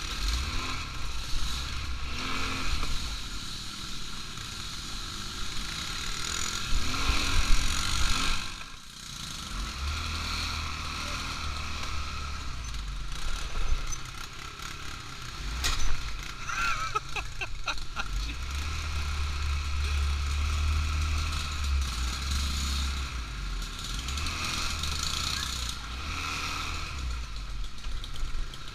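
ATV engine running under way as it is ridden along, with wind buffeting the microphone in heavy low gusts. About sixteen seconds in there is a sharp knock followed by a short wavering tone.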